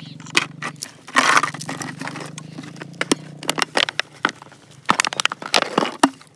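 Plastic lighters and a plastic bottle being handled on dry grass: a string of sharp clicks, rattles and short scrapes. A low steady hum runs under the first half and fades out.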